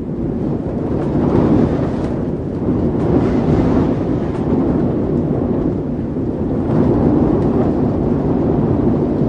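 Wind heard from inside a building: a low, steady rushing rumble that swells in gusts, with other faint noise mixed in.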